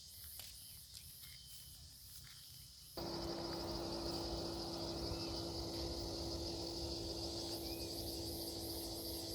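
Crickets trilling: a steady high trill, with a high chirp pulsing about three times a second that drops out about three seconds in and comes back near the end. About three seconds in, a steady low hum with a rush of noise starts suddenly and becomes the loudest sound.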